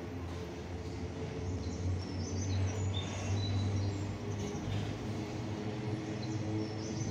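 Container freight train pulling out, its wagons rolling past with a steady low rumble and hum. Short high-pitched chirps come through about two to four seconds in.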